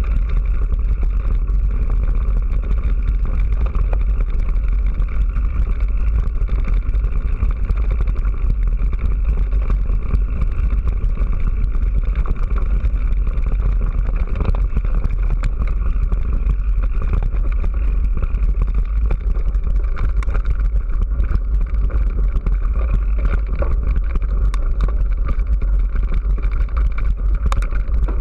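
Mountain bike rolling over a loose gravel track, picked up by a bike-mounted camera: a steady deep rumble of wind buffeting and tyre noise with a gravelly hiss, and a few sharp rattling clicks near the end.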